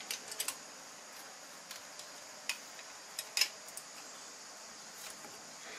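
Scattered light clicks and taps of small metal alternator parts being handled and fitted together, over a faint steady high hiss.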